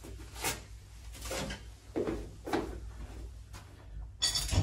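Handling noises: a string of soft knocks and rustles as parts are moved about, then a light metallic clatter near the end as the hub clamps are picked up.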